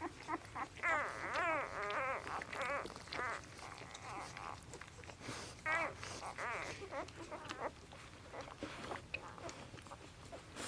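Newborn Labrador retriever puppies squeaking and whining in many short, high, wavering cries, thickest in the first three seconds and again about six seconds in.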